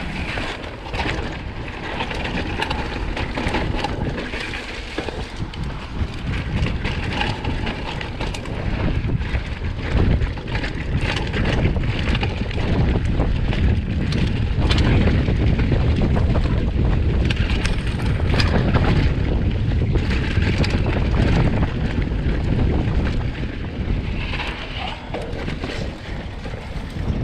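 Mountain bike rolling fast down a dirt singletrack, heard from an action camera on the bike: wind rushing over the microphone, tyres on dirt and rocks, and frequent knocks and rattles from the bike over bumps. It is louder through the middle stretch.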